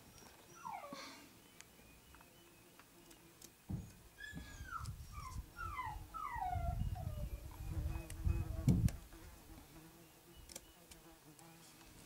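An animal's short, high whines, each falling in pitch, repeated several times around the middle, over a low rumble from about four to nine seconds in, with a few faint clicks.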